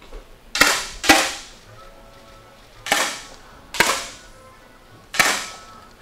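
Five 10 m air rifle shots fired one after another by different shooters, irregularly spaced over about five seconds. Each is a sharp pop with a brief fading tail.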